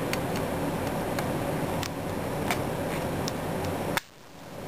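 Light clicks and taps of hard plastic model kit parts being handled and fitted together, several separate clicks over a steady background hum. The sound cuts out abruptly near the end and fades back in.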